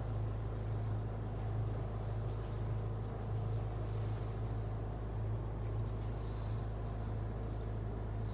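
Catamaran's inboard diesel engines running steadily at low revs, a continuous low hum while the boat is manoeuvred slowly out of its berth.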